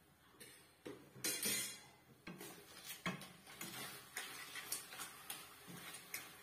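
Wooden spatula stirring clams in a wok: irregular clicks and scrapes of the shells and spatula against the pan. There is a louder rush about a second in, as something is tipped into the wok.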